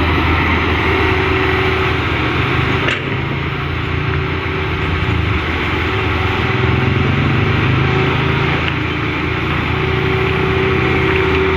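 Excavator's diesel engine running, its pitch rising and falling slightly as it works, with one sharp knock about three seconds in.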